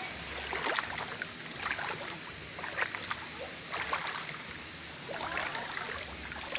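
Shallow creek water running, with short splashes and gurgles about once a second.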